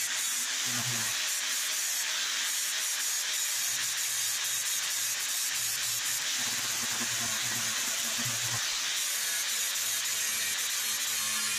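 Electric angle grinder with a sanding disc working along a TIG-welded seam on an aluminum body panel, a steady abrasive grinding hiss with the motor's tone wavering as it is pressed and lifted.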